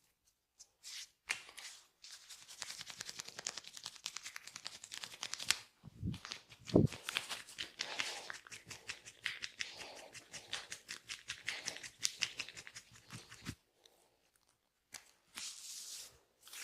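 Massage strokes of hands on skin and hair: a fast run of rubbing and tapping sounds that stops abruptly near the end, with one louder, lower sound about seven seconds in.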